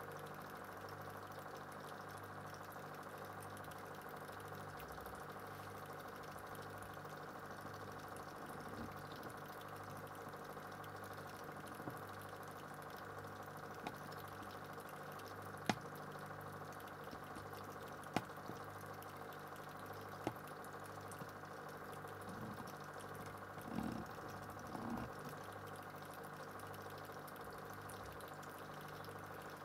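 Steady low mechanical hum, as of a small motor running, with a few faint sharp clicks through the middle and a couple of soft bumps near the end.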